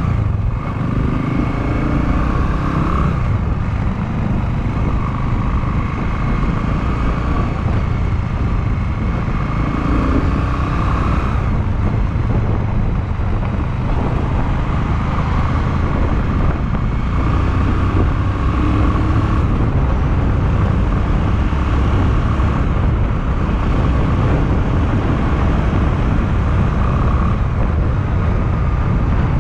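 Honda Clubman motorcycle's engine running as it is ridden along the road, with the engine note rising and falling a few times.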